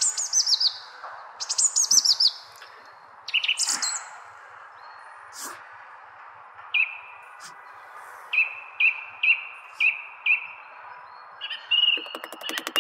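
Birds chirping. Quick falling chirps come in three runs over the first four seconds, then a series of short whistled notes about twice a second starting around seven seconds in, over a steady hiss. It ends with a rapid clicking trill.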